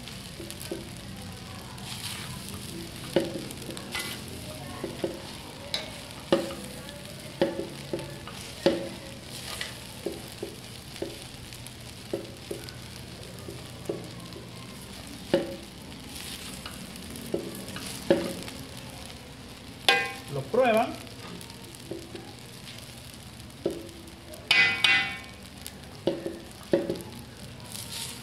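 Fried rice sizzling in a large metal pan while a spatula stirs and tosses it. The spatula knocks and scrapes against the pan every second or two, with one louder, longer scrape about three-quarters of the way through.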